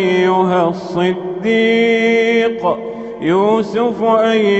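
A man reciting the Quran in a slow, melodic chanting style, drawing syllables out into long sung notes. About a second and a half in he holds one note steady for about a second, then slides up into the next phrase.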